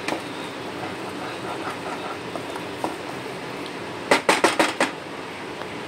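Wooden spatula stirring and scraping a thick masala paste frying in a nonstick kadai. About four seconds in comes a quick run of about six sharp knocks: the spatula tapped against the pan.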